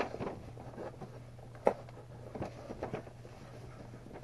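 Hands rummaging in a cardboard box of packed items: soft rustling and small knocks of packaging, with one sharp click about a second and a half in, over a steady low hum.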